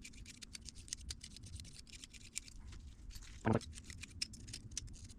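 Light scattered metallic clicks and scratches of small hand tools being worked on the motorcycle engine's open valve gear while the valve clearances are re-checked, with one brief louder thud about three and a half seconds in.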